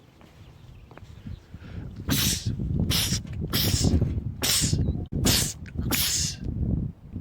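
A man sneezing in a rapid fit: about six loud sneezing bursts in quick succession, starting about two seconds in.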